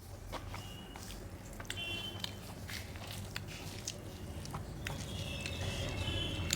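A person chewing and eating a meal of rice and dal, with soft scattered mouth clicks and smacks.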